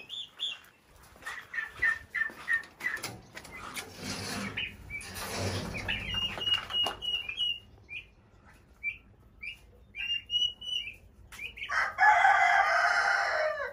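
Turkey poults peeping: thin high whistles repeated in short runs, with a rush of wind noise about four seconds in. Near the end a loud, drawn-out rooster crow lasting under two seconds.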